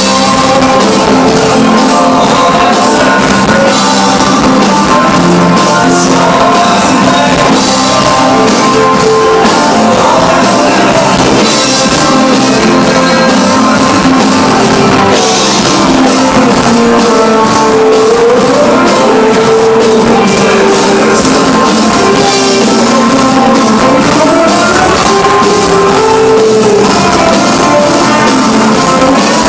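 Live band playing loud rock music: electric guitars, a drum kit with a steady beat, and a singer on a microphone.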